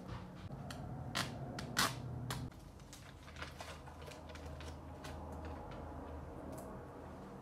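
Paper handling: the glossy pages of a poster book crinkle and snap, with two loud crackles about one and two seconds in. After that come softer rustles and light taps of paper against a wall.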